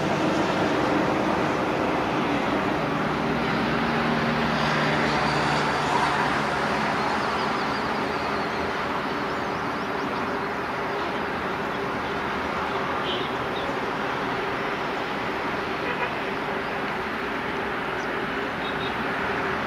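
EMD-built WDP 4B diesel locomotive working hard under power as it leads an express train, heard from a distance as a steady rumble with an engine drone that fades after about six seconds.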